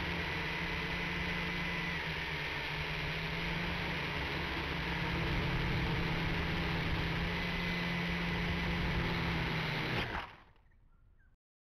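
Motors and propellers of a WLToys V959 toy quadcopter whirring steadily, heard through its own onboard camera's microphone. About ten seconds in there is a sharp knock as it crashes into vegetation, and the motor sound cuts off.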